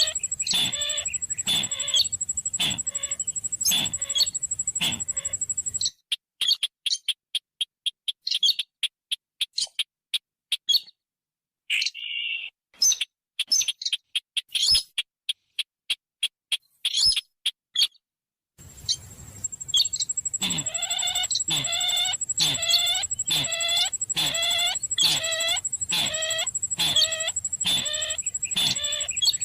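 Recorded song of a chim chằng, the greater racket-tailed drongo, calling at night: short down-slurred notes repeated about twice a second over a steady high whine. In the middle the track switches to rapid clicking and chattering chirps broken by silent gaps, then the repeated notes come back.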